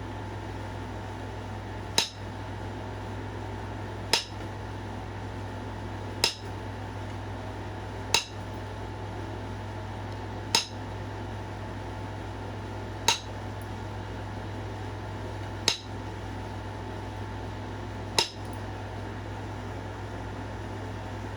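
Flintknapping: a percussion tool striking the edge of a stone point eight times, a sharp glassy click about every two to two and a half seconds, as flakes are driven off to thin it. A steady low hum runs underneath.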